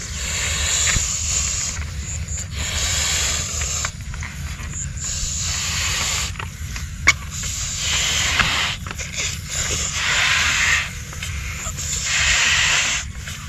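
Long rocket balloons being blown up by mouth: repeated rushes of breath into the balloons, each a second or two long with short pauses between. A sharp click about seven seconds in.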